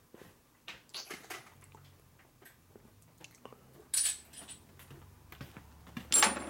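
Metal tools clinking and rattling as they are handled, with two loud ringing metallic clinks, one about four seconds in and one just after six seconds.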